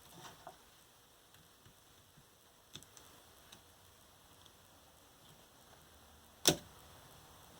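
Faint, scattered small clicks of a tool working the plastic clips that hold a scooter battery pack's circuit board, then one sharp snap near the end as a clip pops loose.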